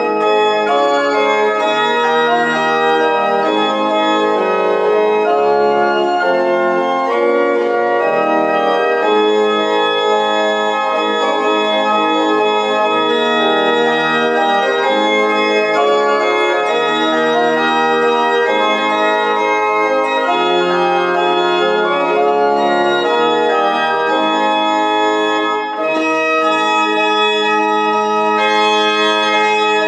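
Church organ playing a hymn tune in full held chords, with a short break between phrases near the end.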